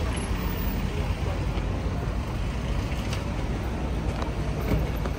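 City street traffic: a steady low rumble of passing cars, with a few faint clicks over it.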